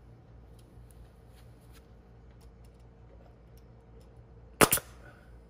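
Pneumatic brad nailer firing once about four and a half seconds in, a single sharp snap as it drives a brad to tack a board in place.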